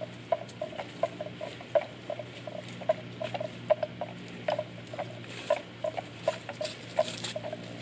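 Water buffalo grazing: grass tearing and being chewed in short, irregular crunches, several a second.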